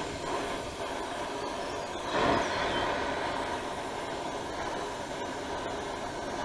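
Torch flame running with a steady rushing hiss while heating a seized wheel hub on its axle, briefly louder about two seconds in.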